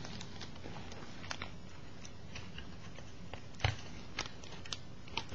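Scattered small clicks and taps of a Canon T90 camera's plastic top cover being handled and seated back onto the body, with one louder knock about three and a half seconds in, over a faint steady hum.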